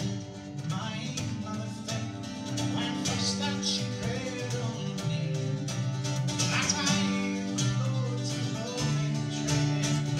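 Scottish folk band playing a tune live on fiddle, bouzouki and drum kit.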